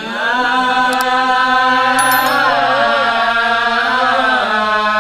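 A man chanting a verse of a Sasak hikayat in the nembang style, a loud solo voice drawing out long melismatic notes that waver and bend in pitch, over a steady low hum.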